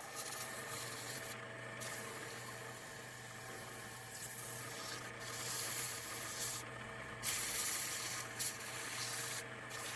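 P.Y.H. TDP-3B benchtop drill press running with a steady motor hum while 220-grit emery cloth is held against its spinning parts, a rubbing, sanding hiss that drops out briefly several times.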